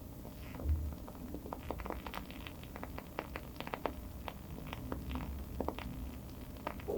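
Wooden-wick candle burning with an irregular crackle: scattered small pops, several close together, over a low steady rumble, with a soft low thump just under a second in.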